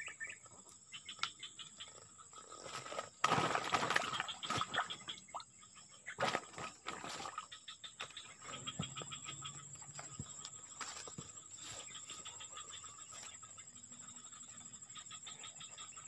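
Insects buzzing and chirping steadily, a high continuous drone with fast repeating chirps. About three seconds in there is a louder burst of rustling that lasts a second or two, and a few short clicks follow.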